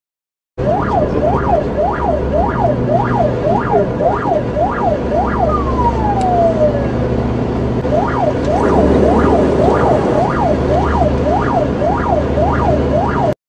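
Police car siren on a fast yelp, its pitch sweeping up and down about twice a second over the low drone of the car's engine and road noise. About five seconds in, the siren drops in one long falling tone and pauses briefly, then the rapid sweeps start again.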